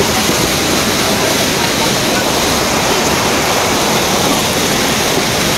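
Fast-flowing floodwater rushing down a street and churning against a wall: a loud, steady rush of water.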